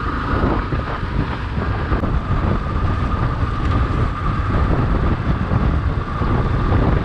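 Yamaha XTZ 250's single-cylinder engine running at a steady cruise, about 40 km/h, mixed with wind rushing over the action-camera microphone.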